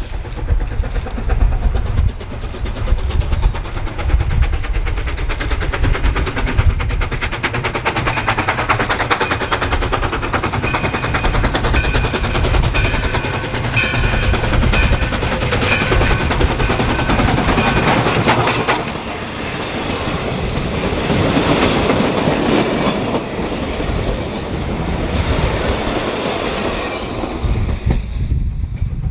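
Steam train running past with a rapid, even rhythmic clatter and heavy low rumble, with faint ringing tones in the middle.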